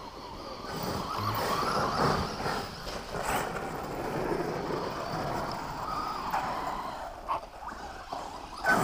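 Radio-controlled monster truck driving over a dirt track: its motor and tyres on loose dirt, the sound swelling and fading as it moves.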